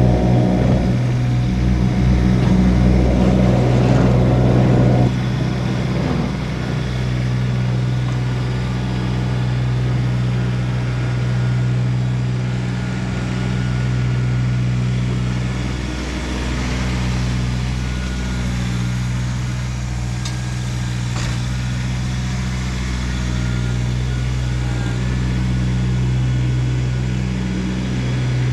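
Kubota BX1850 compact tractor's three-cylinder diesel engine running steadily. An extra, louder layer of sound cuts off suddenly about five seconds in, after which the engine hum goes on evenly.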